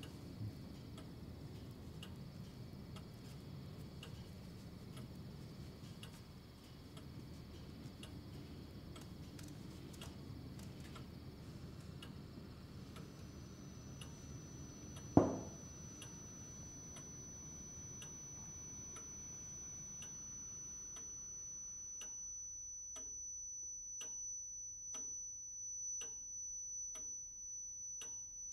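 Pendulum clock ticking steadily, about once a second. About halfway through comes a single sharp knock, a glass set down on the wooden table. From about 13 s a thin, high steady ringing tone comes in and holds, while the low room noise fades out near the end and leaves the ticking bare.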